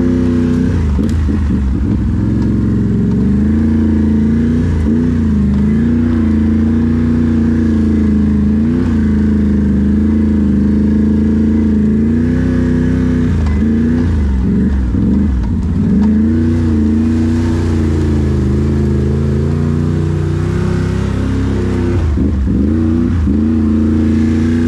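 Can-Am ATV engine running under way, mostly at steady revs. The revs drop and climb back several times as the throttle is let off and picked up again.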